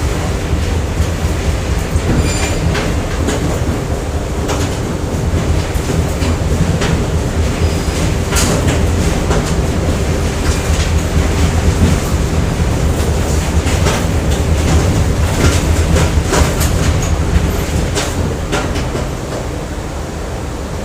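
Factory machinery ambience: a steady heavy rumble with irregular sharp metallic clanks and knocks and a faint steady hum. It eases off a little near the end.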